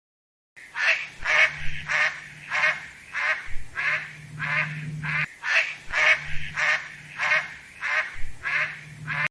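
Duck quacking over and over in a quick, even series of about two to three quacks a second, starting about half a second in.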